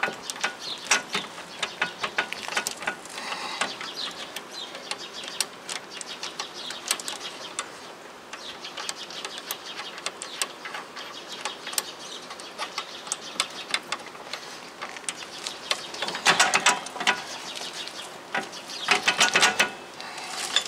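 Metal clicks and clinks of a wheel hub and bearing assembly being turned and worked by hand onto the axle splines and knuckle, the axle not wanting to go through. Two bursts of rapid clicking come near the end.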